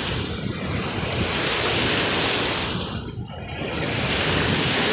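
Choppy lake waves washing in at the shore, with wind buffeting the microphone. The rush swells and eases, dipping about three seconds in.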